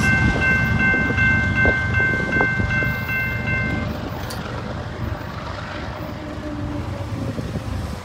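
Railroad grade-crossing warning bell ringing in quick, even strokes, then stopping about four seconds in as the crossing clears. Underneath, the low rumble of the receding freight train.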